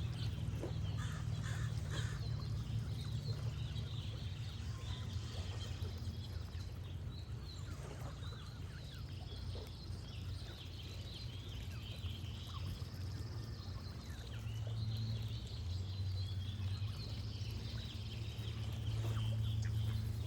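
Goose honks over continuous songbird chirping and a steady background of gently flowing water.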